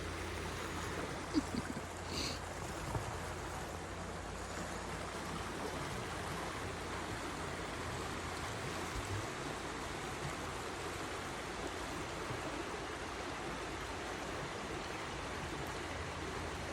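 Stream water running steadily, with a few faint short knocks in the first few seconds.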